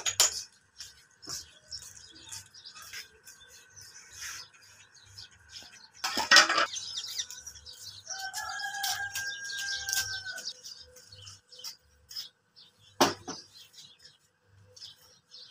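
A rooster crows once near the middle, a single held call of about two and a half seconds, over scattered knocks and clatter of utensils. Near the end a sharp clank sounds as the iron tawa griddle is set on the gas stove.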